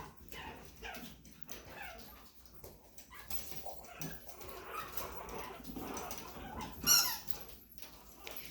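Chihuahua puppies whimpering and yipping in short cries, with one loud, high squeal about seven seconds in.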